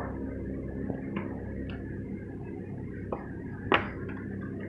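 White cardboard phone box and its parts handled on a table: a few light clicks and knocks, the loudest about three-quarters of the way in, over a steady low hum.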